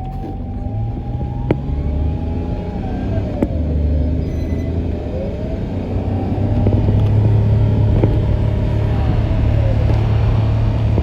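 An emergency vehicle's wailing siren, sliding slowly up to a held high tone and back down, more than once, over the low rumble of a heavy vehicle's engine that grows louder about halfway through.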